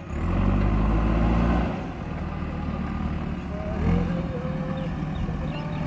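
JCB backhoe loader's diesel engine running hard under load for the first couple of seconds, then settling to a steadier, lower running.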